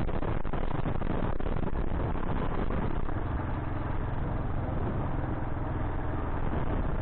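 Kawasaki KLR 685 dual-sport motorcycle's single-cylinder engine running steadily under a rush of noise, with a few knocks in the first seconds; a steadier low engine hum stands out from about three seconds in.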